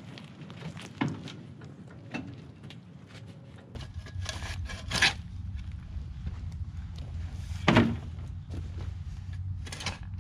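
A wheeled wooden chicken coop being rolled across the ground, with scattered knocks and footsteps. Then a shovel blade scraping into dirt and chicken manure, three strokes louder than the rest.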